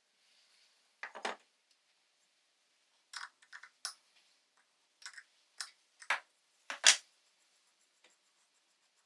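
Short metallic clinks and scrapes of small parts being handled, in about seven separate bursts, the loudest near the end.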